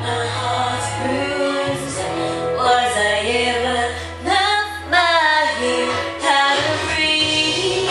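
Music: a pop song with a woman singing long, wavering notes over a steady bass.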